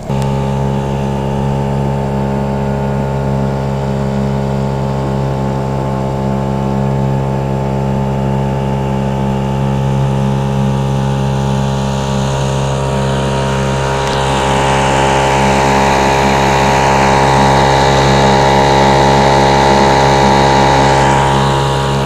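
Small boat's outboard motor running at a steady speed while cruising. A rushing hiss grows louder in the second half.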